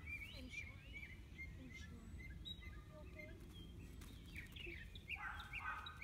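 Small birds chirping faintly in short, quickly bending high calls, with a louder burst of calls about five seconds in, over a steady low rumble of background noise.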